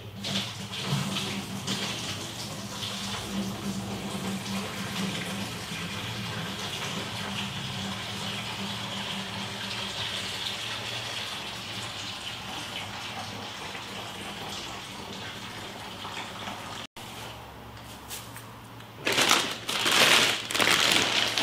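Steady rush of running liquid with a low hum underneath. After a cut near the end, loud crinkling of a foil bag of Cascade hops being opened.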